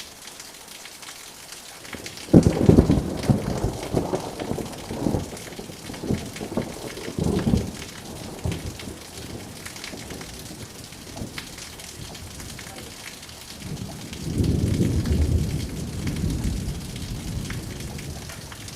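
Steady rain with thunder. A sharp thunderclap comes a couple of seconds in and rumbles on and off for several seconds, and a second long roll of thunder follows about two-thirds of the way through.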